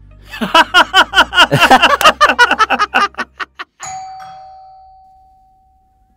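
Electronic doorbell ringing: a fast run of chime notes for about three seconds, ending on one held tone that fades away.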